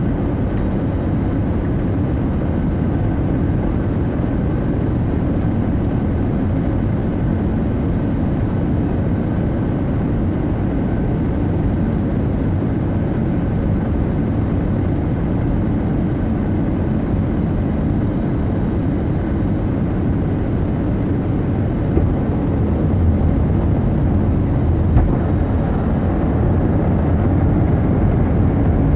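Steady cabin noise inside an Airbus A320neo on final approach, heard by the wing: a low rumble of airflow and its CFM LEAP-1A engines, with a faint steady whine. A few small knocks come about three-quarters of the way in, and the low rumble grows slightly stronger toward the end.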